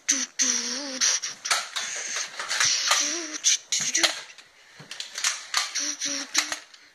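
Repeated sharp clicks and clatter of a Nerf dart-blaster fight, with short high-pitched vocal noises from a child in between.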